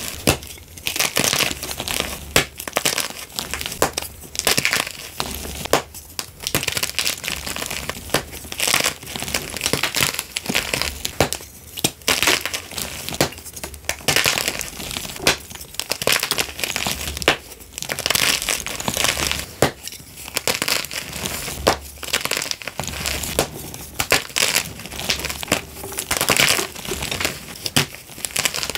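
Blocks of gym chalk being snapped and crushed in the hands: a continuous dry crunching and crackling broken by many sharp snaps.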